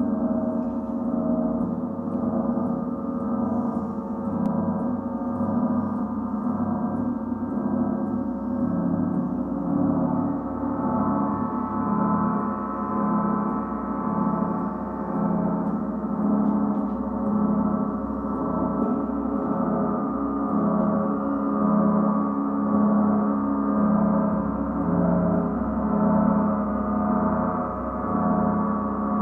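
Gongs played as a continuous gong-bath wash: a dense, held shimmer of many steady overlapping tones that swells and ebbs regularly, roughly every second and a half.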